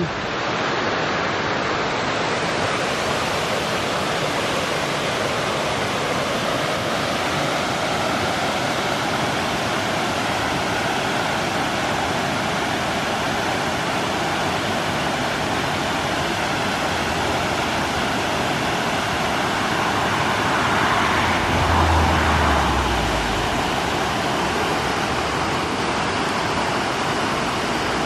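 Steady rushing of a man-made waterfall cascading over stepped rocks into a pond. A brief louder swell with a low rumble comes a little past two-thirds of the way through.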